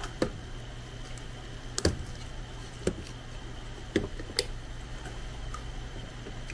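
Plastic container with a snap-on lid being handled: a handful of sharp plastic clicks and knocks as the lid is taken off and pressed back on, over a steady low hum.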